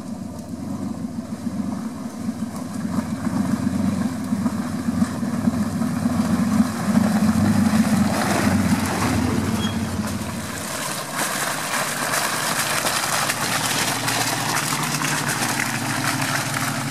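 A 4x4 off-road vehicle's engine running steadily at low revs. About eleven seconds in, the deep engine note fades and a rushing hiss grows.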